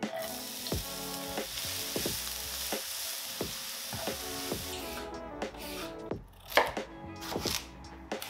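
Chopped onion dropped into hot olive oil in a nonstick frying pan, sizzling steadily as it is stirred with a wooden spoon. About five seconds in the sizzle stops and a chef's knife chops carrots on a wooden cutting board, a run of sharp knocks.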